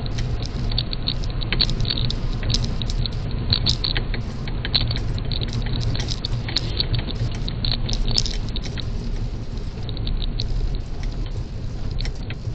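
Car driving on a wet road, heard from inside the cabin: a steady low road rumble with frequent small ticks and patter over it.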